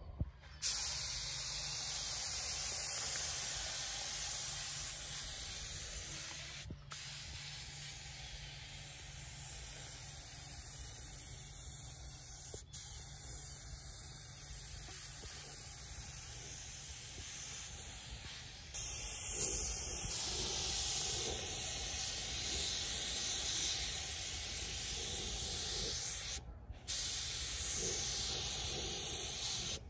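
Eastwood Concours LT100 HVLP spray gun hissing steadily as compressed air atomises paint in spraying passes, with a few brief breaks. The hiss gets louder about two-thirds of the way in.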